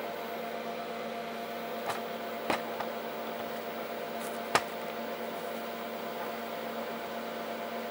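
Denford Orac CNC lathe humming steadily at idle, its turning program finished. A few light knocks come about two seconds in, again at two and a half seconds and at four and a half seconds.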